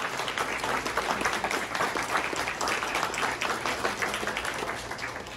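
Audience applauding, many hand claps that ease off near the end.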